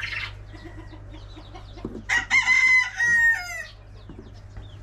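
A rooster crows once, starting about two seconds in and lasting about a second and a half, its pitch falling at the end. Other chickens cluck faintly around it.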